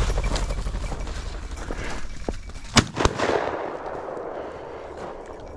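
A shotgun shot about three seconds in, followed about a quarter second later by a second, fainter crack.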